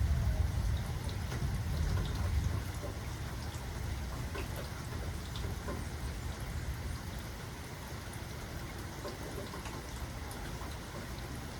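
Steady rainfall with individual drops ticking, over a low rumble of thunder that is loudest in the first couple of seconds and then eases off.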